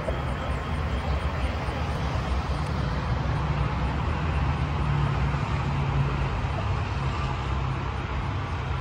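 Steady low rumble of road traffic, swelling for a few seconds in the middle.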